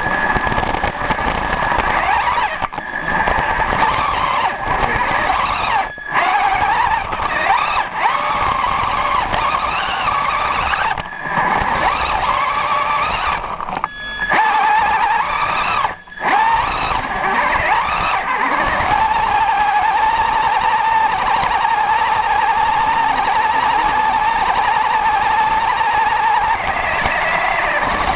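Motor of a radio-controlled car converted with helicopter parts, heard up close from a camera riding on the car: a whine that rises and falls in pitch with the throttle, cutting out briefly four times, then holding a steady pitch for several seconds near the end.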